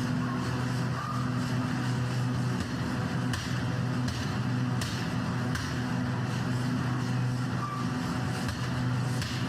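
Steady running hum of workshop machinery, with a couple of faint knocks about three and a half and five seconds in.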